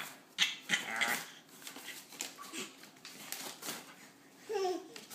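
A baby's breathy, excited giggles and squeals, with a short squeal falling in pitch near the end.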